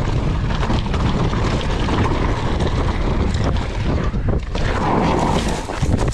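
Wind rushing over an action-camera microphone at riding speed, with the mountain bike's rattles and knocks as it descends a rock garden.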